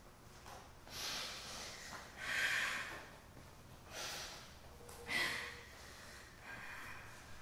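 A woman sobbing: five ragged, breathy sobs about a second apart, the loudest about two and a half seconds in.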